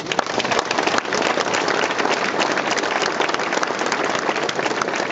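Audience applauding: many hands clapping at once, beginning suddenly and holding steady.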